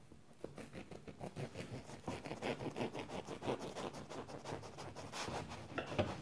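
Serrated bread knife sawing through a loaf of bread on a wooden cutting board: a quick run of rasping back-and-forth strokes, several a second, starting about half a second in.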